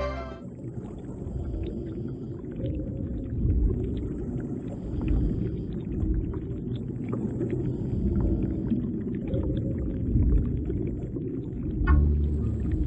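Underwater ambience picked up through a diving camera's housing: a low, muffled rumble of water with scattered crackling clicks, swelling and fading every couple of seconds. Music comes in near the end.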